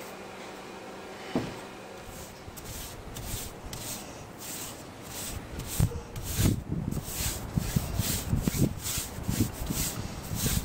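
A faint steady hum and a single knock, then a paintbrush stroking wood stain onto pallet-wood boards: repeated bristle swishes, two or three a second, with some low thumps mixed in.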